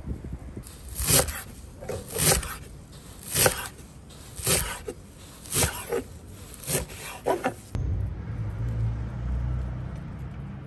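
Chef's knife chopping fresh cilantro and dill on a wooden cutting board, strokes about once a second. About three-quarters of the way in the chopping stops and a low steady rumble takes over.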